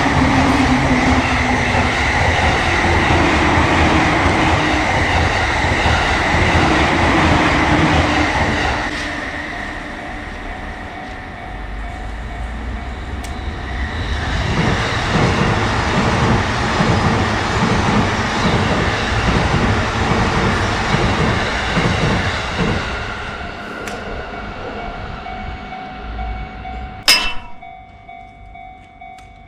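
Electric commuter trains passing a railway level crossing. A train runs past loudly for the first nine seconds or so. A second one then passes with a regular clatter of wheels over rail joints and fades away, and a single sharp clack comes near the end.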